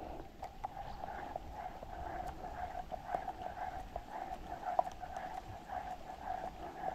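Rain falling on the river and the canoe, with many small scattered drop ticks over a steady patter.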